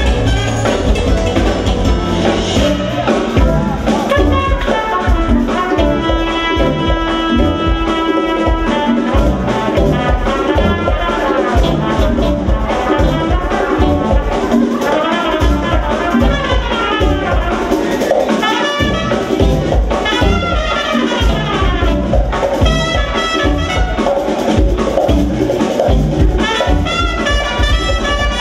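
A jazz-fusion band playing live: trumpet over electric guitar, keyboards, electric bass and drum kit, with a held chord a few seconds in.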